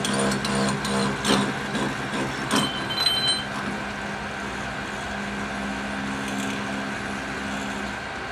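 Metal lathe running while its tool cuts a spinning chunk of 17-4 stainless steel, fed by hand. Sharp ticks and knocks sound through the first three seconds, with a brief high squeal about three seconds in, then a steadier hum.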